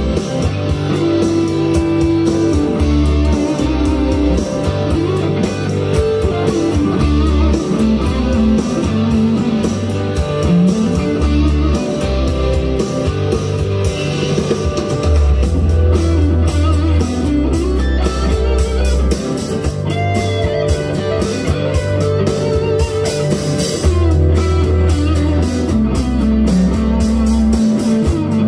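Electric guitar, a Firefly FFLPS Les Paul copy, playing lead lines with string bends over a southern rock backing track with drums and bass.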